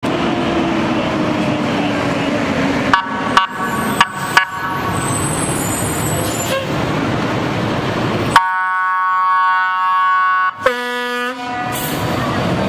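Fire engine sounding its horn to clear a car that is blocking it: four short honks about three seconds in, then a long blast of about two seconds and a shorter, lower blast, over the truck's running engine.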